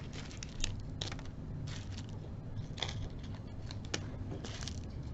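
Small plastic bead baggies rustling and crinkling as they are handled, with scattered light clicks and taps.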